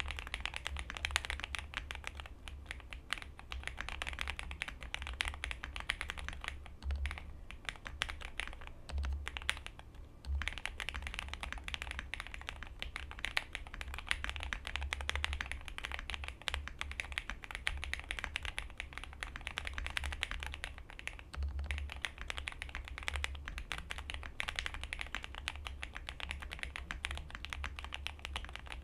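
Fast, continuous typing on a Zoom65 mechanical keyboard with stock JWK switches and all foams fitted, a rapid stream of key clicks with a deep undertone. There is a brief lull about a third of the way in.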